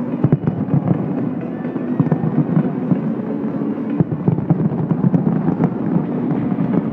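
Fireworks going off in a dense, continuous barrage of bangs and crackles, with music faintly underneath.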